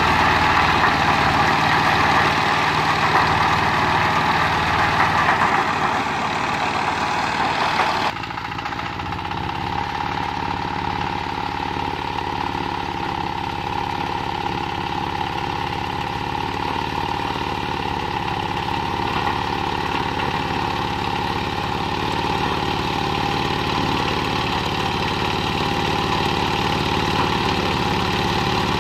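Zubr 15 hp mini tractor's single-cylinder diesel engine running steadily under load while its rear rotary tiller churns the soil. About eight seconds in the sound changes abruptly and drops a little in level, then runs on steadily.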